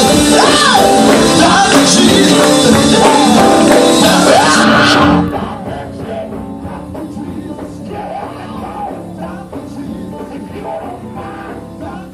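Live gospel song with singing over a band with tambourine. Loud until about five seconds in, then it drops sharply in level and carries on much more quietly.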